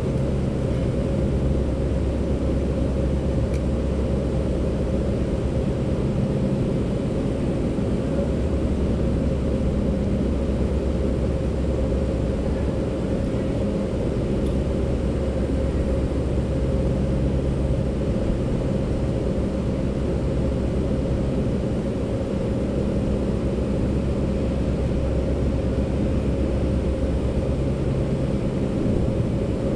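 A machine running steadily, with a constant hum and a low rumble that swells and eases every several seconds.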